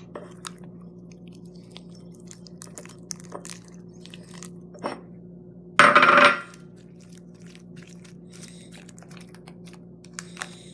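Homemade glue-and-borax slime being squeezed and stretched by hand: soft sticky clicks and crackles, with one louder squelch lasting about half a second around six seconds in.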